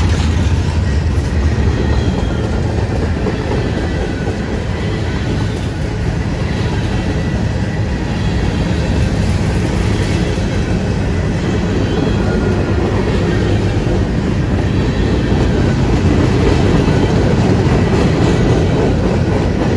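CSX freight train's cars, open-top gondolas and then covered hoppers, rolling past close by: a loud, steady rumble of steel wheels on the rails.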